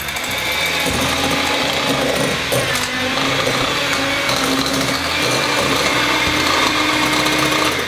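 Electric hand mixer running, its twin wire beaters whipping softened cream cheese in a glass bowl: a loud, steady motor whine whose hum rises slightly in pitch, cutting off near the end.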